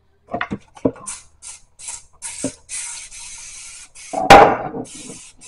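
Dawn Powerwash trigger spray bottle squirting in a quick series of short sprays, about two or three a second, one of them a longer hiss. A few light dish clinks come before it, and a loud clatter about four seconds in.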